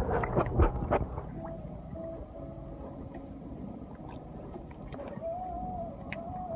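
Splashing as a microphone goes under the pool's surface in the first second, then muffled underwater sound with faint gurgling and a few faint wavering tones.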